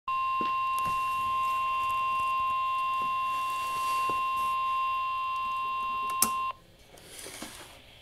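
NOAA Weather Radio's 1050 Hz warning alarm tone, one steady, harsh beep heard through a Midland weather radio's small speaker, signalling that a warning is about to be broadcast. It cuts off about six and a half seconds in, just after a sharp click.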